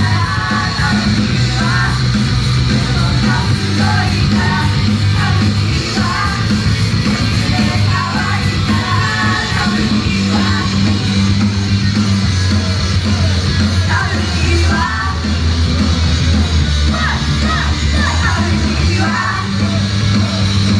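Loud live rock music with a steady heavy bass, sung and yelled vocals over it.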